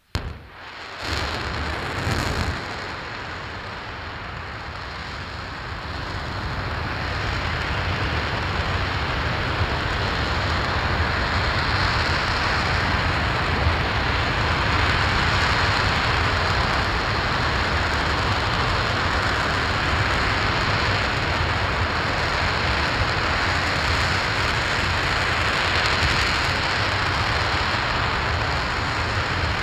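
RS-25 liquid-hydrogen/liquid-oxygen rocket engine igniting in a static test firing. It starts suddenly with a couple of sharp cracks in the first three seconds, then settles into a steady, loud, rushing rumble that grows stronger over the next several seconds and then holds at full thrust.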